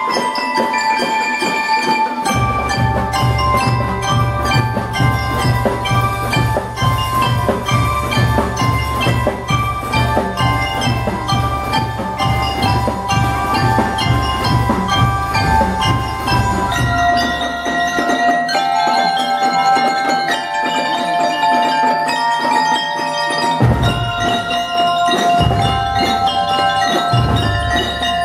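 A school drum and lyre band playing: mallet keyboards with metal bars ring out a melody of struck notes, over a steady beat of bass and snare drums. The drums drop out a little past the middle, leaving the mallet melody alone, and come back in short spells near the end.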